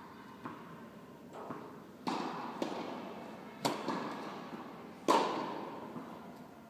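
Tennis ball struck hard by a racket, three sharp hits about a second and a half apart, the last the loudest, each ringing on in the echo of a large indoor tennis hall. Fainter taps of the ball fall between them.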